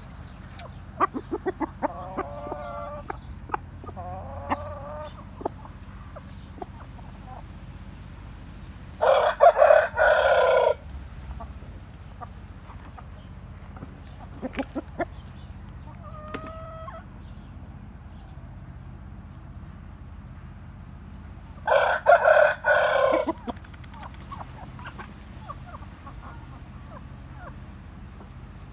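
A seven-month-old Plymouth Rock rooster crowing twice, each crow lasting under two seconds and about twelve seconds apart. The crows are the loudest sounds. Between them come softer clucking calls and a few short clicks.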